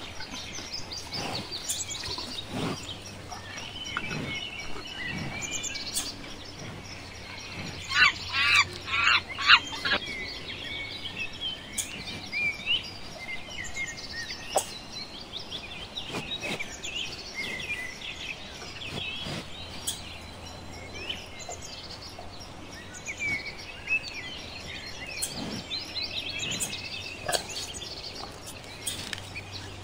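Forest ambience full of birds chirping and calling. About eight seconds in comes a loud run of five or so quick sweeping calls.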